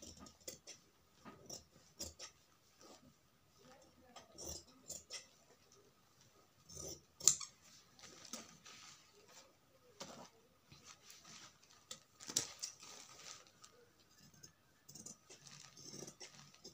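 Scissors snipping through lining fabric in a string of irregular cuts, loudest about seven seconds in.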